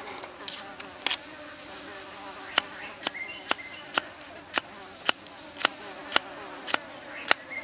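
Kitchen knife slicing through ginger root onto a wooden chopping block: a crisp knock with each cut, about two a second from about two and a half seconds in, after a couple of lighter knocks while the root is peeled.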